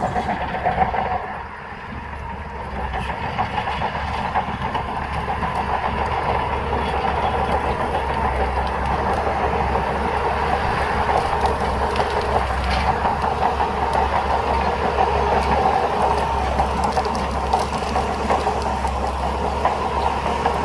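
Crawler bulldozer's diesel engine running under load, with its steel tracks clanking and rattling. The noise dips briefly about a second and a half in, then builds back up and holds steady.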